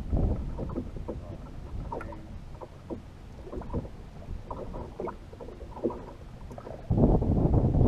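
Small waves lapping and slapping against the hull of a drifting bass boat, with scattered light knocks. About seven seconds in, a much louder low rush of wind on the microphone sets in.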